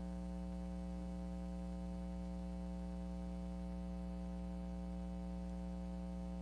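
Steady low electrical mains hum with a buzzy edge from the microphone and sound system, unchanging.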